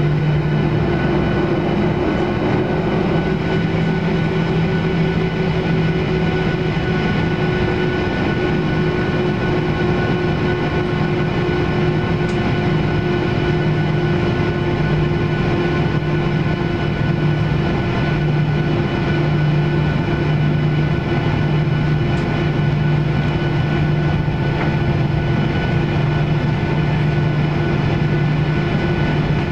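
Cabin sound of a Boeing 737-700 taxiing on the ground, its CFM56-7B engines running at low taxi power. It is a steady drone carrying several unchanging tones, the strongest of them low.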